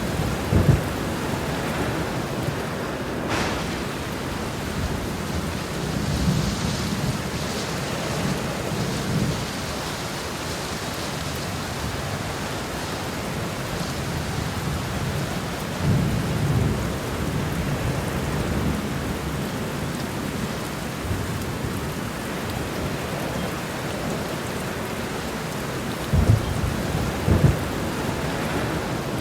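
Heavy rain falling steadily, with rolls of thunder rumbling low several times: at the start, around a quarter of the way in, about halfway, and again near the end. A sharp crack about three seconds in.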